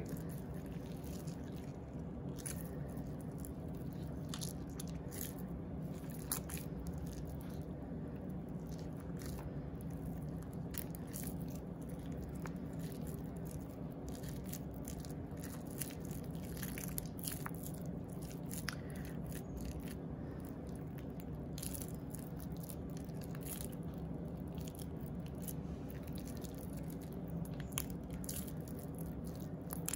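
Damp grated soap shavings crunching and crackling as bare hands squeeze them tightly into a soap ball, in irregular small crackles over a steady low hum.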